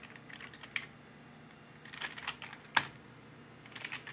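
Typing on a computer keyboard: scattered keystrokes in short runs, with one sharper, louder keystroke near three seconds in.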